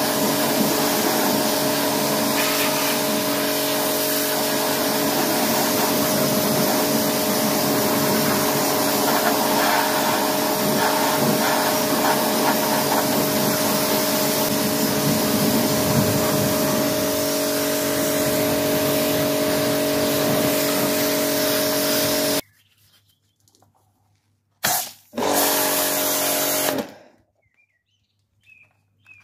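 Pressure washer running: a steady motor-and-pump hum under the hiss of the water jet hitting the wheel arch and brake disc. It cuts off suddenly about three-quarters of the way through, with two short bursts a few seconds later before it starts again at the very end.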